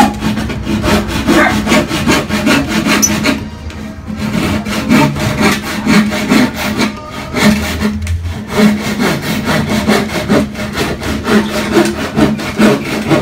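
Hand saw cutting through a thin wooden board in steady back-and-forth strokes, a repeated rasp of teeth on wood.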